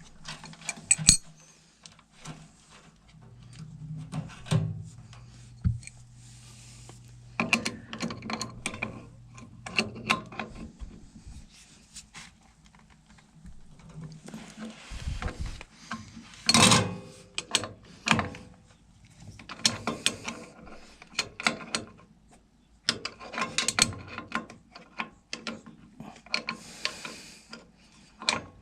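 Hand-tool work on a gas water heater's plumbing and gas control valve: an irregular run of metal clicks, knocks and clanks, with a low steady hum for several seconds near the start.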